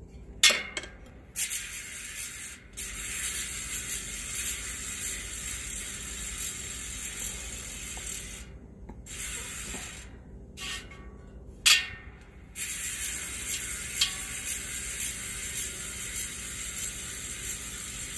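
Hadley mountain bike hub with 72 points of engagement, freewheeling: the freehub's ratchet clicks so fast that it runs together into a steady buzz. It is not super quiet but also not super loud. A few sharp clicks come in, and the buzz stops briefly three times near the middle.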